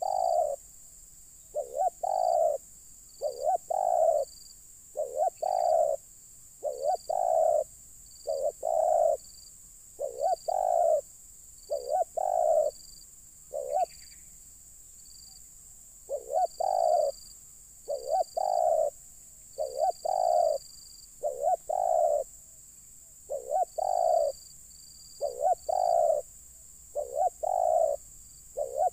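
Spotted dove cooing: short phrases of two or three notes repeated about every one and a half seconds, with a brief pause about halfway through.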